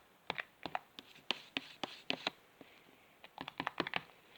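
Spoon working sticky homemade slime in a bowl: a quick, irregular run of small clicks and taps, bunched most tightly near the end.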